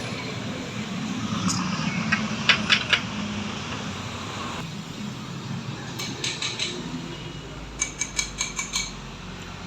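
Light clinking taps, as of metal tools or parts knocked together, in three short runs over a steady low hum: a few strikes about two to three seconds in, another cluster around six seconds, and a quick run of about six taps a little after eight seconds.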